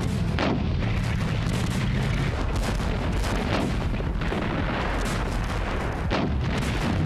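Battle sound: gunfire and heavy gun shots at irregular intervals over a continuous low rumble.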